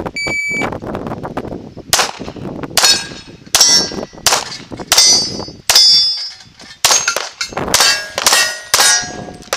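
Electronic shot timer beep, then a fast string of about ten shots from a CZ Tactical Sport Orange pistol. Most shots are followed by the ringing clang of a hit steel plate.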